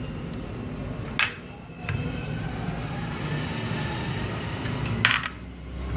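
Small glass spice bowls clinking against a glass mixing bowl as spices are tipped into yogurt: two sharp clinks about four seconds apart, with a fainter tap between them.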